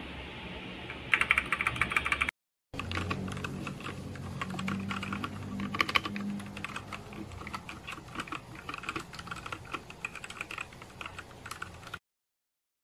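Typing on a Machenike K500 mechanical keyboard: a steady patter of key clicks with a quicker flurry about a second in. The sound drops out briefly at about two seconds in, resumes, and cuts off suddenly near the end.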